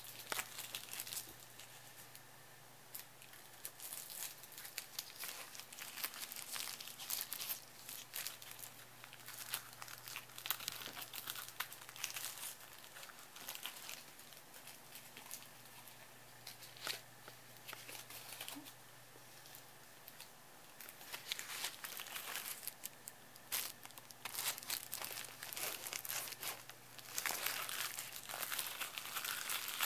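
Cellophane being crinkled and crumpled by hand in irregular crackling bouts, with short pauses between them.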